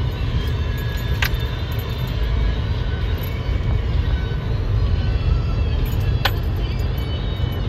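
Road and engine noise inside a moving Chevrolet sedan's cabin: a steady low rumble, with two sharp clicks about five seconds apart.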